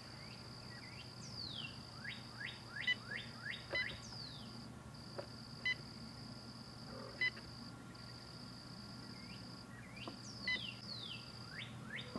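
Faint outdoor ambience of birds calling: runs of quick rising chirps and a few down-sliding whistles, over a steady high buzz that breaks off now and then. A few short pips stand out.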